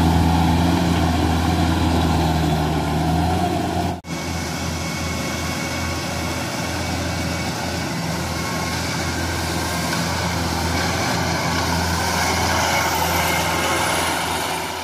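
Rice combine harvester's engine running steadily with a deep, even hum. It drops out abruptly about four seconds in and comes back slightly quieter.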